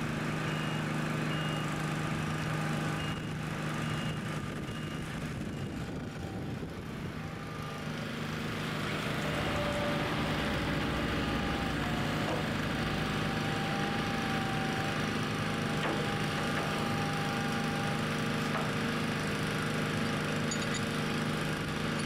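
Forklift engine running steadily, louder from about eight seconds in, with a thin high whine over it for several seconds in the middle.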